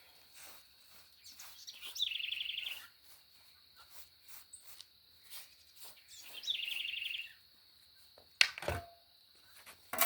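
A bird sings a short, rapid trill twice, about four seconds apart, over a faint steady high whine. A sharp knock comes near the end.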